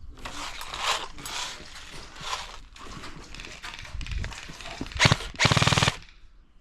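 Airsoft guns firing during a game: scattered shots and movement noise, then a loud, very rapid full-auto burst of about half a second near the end.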